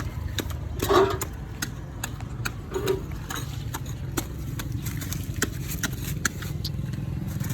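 Shovel digging in stony soil: scattered sharp clicks and knocks, the loudest about a second in, over a low steady engine hum.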